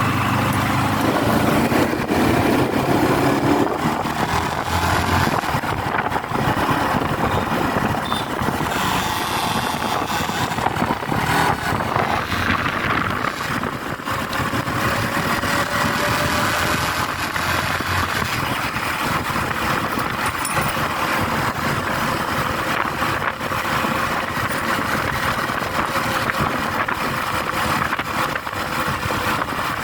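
Yamaha R15 motorcycle on the move: its engine running steadily under heavy road and wind noise.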